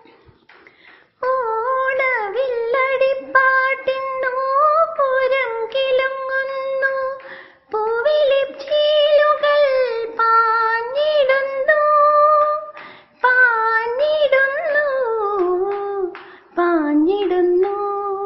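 A woman's voice singing a flowing melody alone, without accompaniment, in long phrases with short breaks between them.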